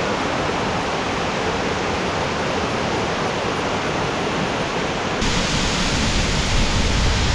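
Waterfall rushing in a steady roar of falling water. About five seconds in it becomes abruptly fuller and heavier in the low end.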